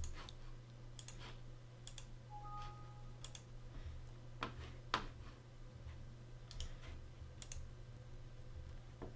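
Faint computer mouse and keyboard clicks: a dozen or so scattered clicks, several in quick pairs, over a steady low hum.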